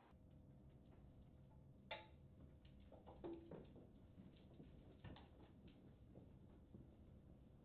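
Near silence: faint room tone with a few soft clicks and knocks from a door being opened and walked through.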